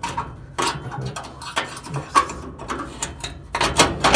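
Irregular metal clicks and knocks of a steel gas grill burner tube and its retaining pin being handled and seated in the firebox, with a louder knock near the end.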